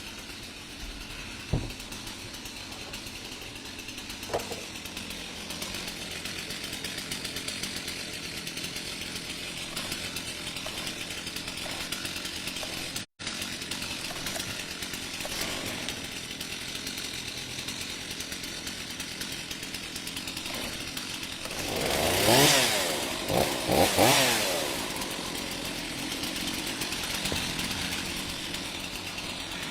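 Two-stroke chainsaws, among them a Stihl 460, idling steadily for a warm-up after sitting unused for over a month. The throttle is blipped twice about 22 and 24 seconds in, each time revving up and dropping back to idle.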